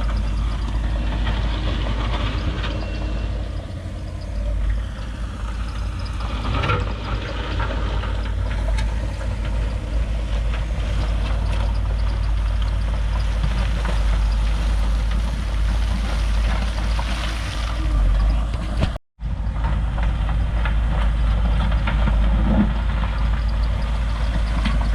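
Heavy diesel engine of earthmoving equipment running steadily with a low rumble and scattered knocks. The sound cuts out for a moment about nineteen seconds in, then carries on.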